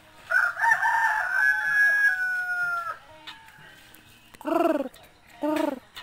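A rooster crows once, a long held call of about two and a half seconds that sags lower at the end. About four seconds in come two short, lower calls that rise and fall.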